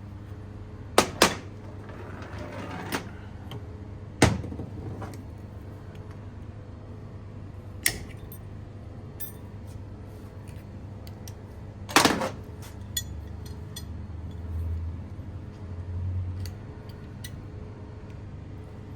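Sharp metal clanks and knocks from tools and parts being handled during work on a car AC compressor clutch: about five separate strikes, the last with a short ring, over a steady low hum.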